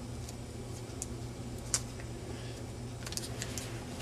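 Paper being folded and creased by hand: a few short, faint crinkles and ticks, with a small cluster near the end, over a steady low hum.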